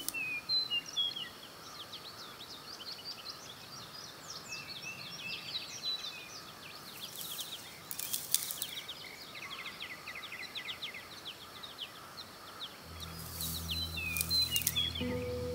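Many small birds chirping and twittering, in quick short falling notes. Low sustained music notes come in about two seconds before the end.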